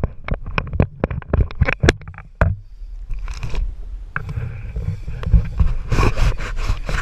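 Handling noise on an action camera: a rapid run of knocks and taps on the housing in the first two and a half seconds, then scraping and a dense flurry of knocks near the end, over a steady low rumble.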